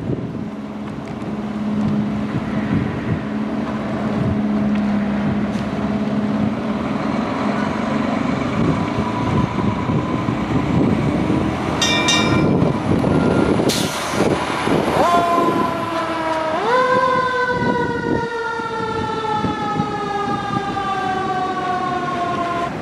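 Fire engine's diesel engine running as it pulls out, with a short horn blast about twelve seconds in and a hiss of air brakes soon after. Its siren then winds up in two steps and slowly falls in pitch.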